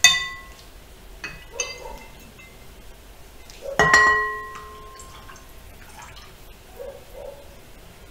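Glass jar clinking against a ceramic bowl as lye solution is poured from it into melted oils for soap. There are two ringing clinks, a short one at the start and a louder one about four seconds in, with softer taps between them.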